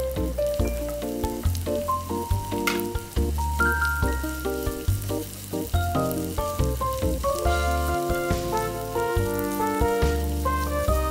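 Background music with a steady bass line over sliced red onions sizzling in oil in a nonstick frying pan. Strips of fish cake are then added and stirred in with the onions.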